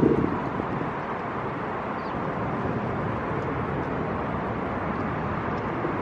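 Steady outdoor background noise of wind and city traffic, with a brief louder burst right at the start.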